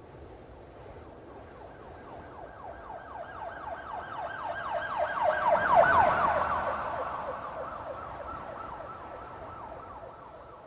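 Police car siren in a fast yelp, its pitch sweeping up and down several times a second, passing by: it grows louder to a peak about halfway through, then fades away.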